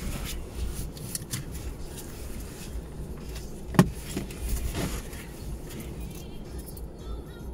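Steady low outdoor rumble of street traffic, with one sharp knock about four seconds in and a few faint high chirps near the end.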